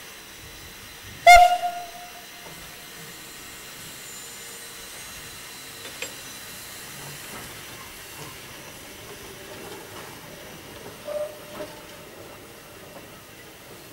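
Narrow-gauge steam tank locomotive Yv.2 sounds one short, sharp whistle blast about a second in, then stands hissing steam steadily as it gets ready to pull away. A fainter short tone comes near the end.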